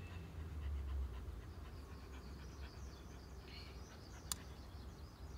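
A large black dog panting steadily at rest after a walk, with a single short click about four seconds in.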